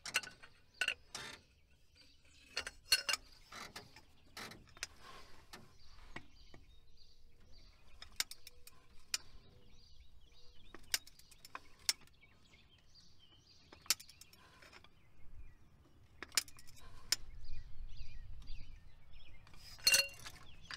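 Scattered metallic clicks and clinks of a socket wrench and long extension working at a stubborn, rust-seized spark plug, in small groups of two or three with quieter gaps between.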